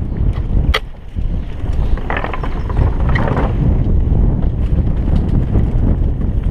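Wind buffeting a helmet-mounted camera's microphone over the steady rumble of a downhill mountain bike rolling fast on a dirt trail, with one sharp click a little under a second in and a grainy hiss for about a second and a half near the middle.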